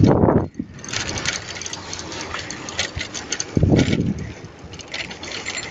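Wind buffeting the microphone of a camera carried on a moving bicycle, gusting at the start and again about four seconds in, over a steady hiss and rapid clicking and rattling from the camera being jostled as it rides.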